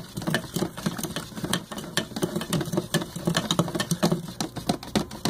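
Metal spoons stirring in a ceramic bowl of borax water and a plastic cup of watery glue mixture, clinking and scraping against the sides in many quick, irregular ticks.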